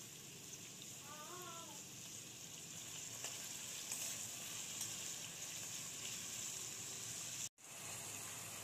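Chopped onion frying in hot oil in a kadai, stirred with a spatula: a steady, faint sizzle that breaks off for a moment near the end.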